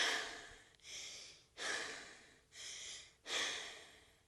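A child's unvoiced, breathy imitation of an eagle call: hissing breaths pushed out sharply and fading, three times, each followed by a quieter, flatter breath.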